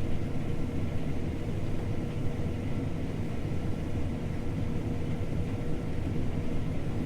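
John Deere T670i combine harvester running steadily at work, heard from inside its cab: a constant low rumble with a faint steady whine.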